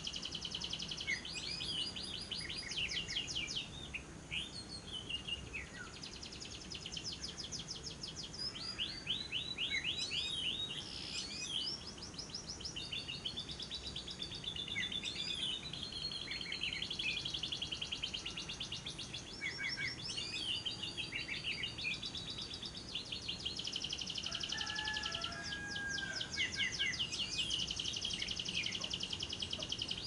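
Female lovebird's long chattering song (ngekek): long runs of rapid, high-pitched repeated notes with short breaks between runs. A few lower chirps come in about two-thirds of the way through.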